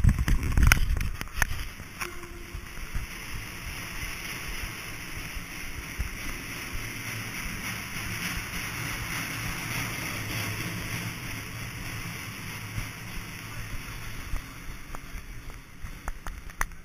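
Steady rushing ambience of a large airport terminal hall, heard by a handheld camera carried at walking pace. Heavy thumps of the camera being handled about a second in, and footstep clicks on the hard floor near the end.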